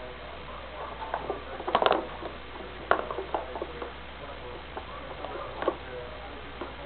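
Cat moving and scratching inside a thin wooden chip basket: light taps, scrapes and rustles of claws and body against the wood strips. A cluster of sharper knocks comes about two seconds in, with single louder clicks about a second later and near the end.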